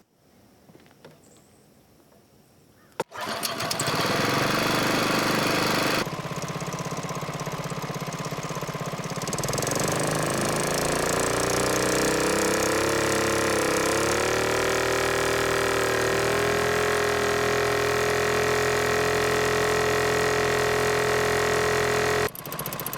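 Boat motor starting with a sudden click about three seconds in and running, easing back a few seconds later, then revving up in a rising whine and holding a steady high speed before dropping back near the end.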